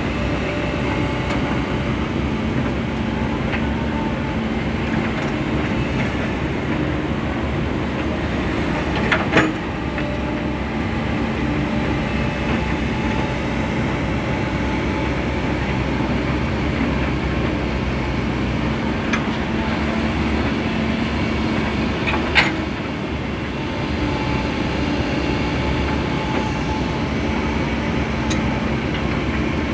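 Komatsu hydraulic excavator's diesel engine running steadily under load as it digs earth. Two sharp knocks cut through, about nine seconds in and again about twenty-two seconds in.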